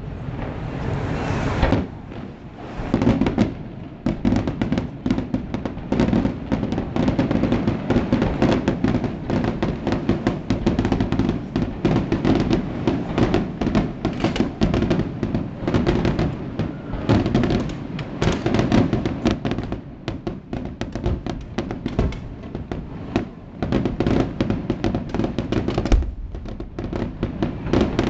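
Fireworks finale: a dense, rapid barrage of shell bursts and crackling reports running almost without a break, with a short lull about two seconds in.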